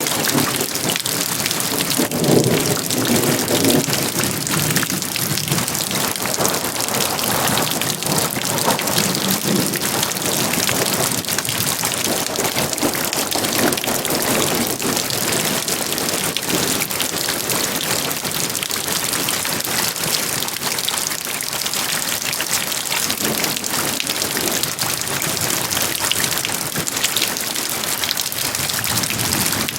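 Heavy rain falling steadily, a dense, unbroken patter of raindrops that starts abruptly and holds at a constant loud level, with slow swells now and then in its lower tones.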